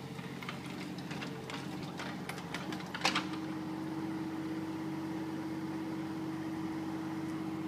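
Bobcat 324 mini excavator's diesel engine running steadily, with scattered clicks and knocks over the first three seconds and a sharp clank about three seconds in. After the clank the engine carries on with a steady hum.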